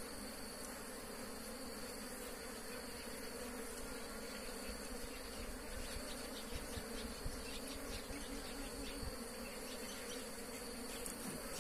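Wild honeybees buzzing steadily in a swarm around their opened nest as the comb is cut out, with a steady high insect whine above the hum and a few light clicks in the middle.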